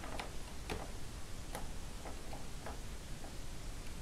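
A small screwdriver driving tiny Phillips screws into the side of a laptop screen frame, giving about half a dozen light, irregularly spaced clicks.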